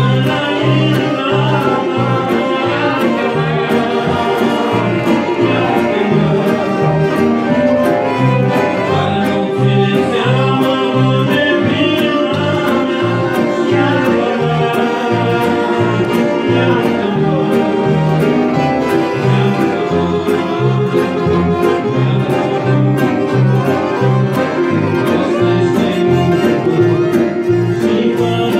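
Music from a Christian song: an instrumental passage with a melody line over a steady, bouncing bass beat.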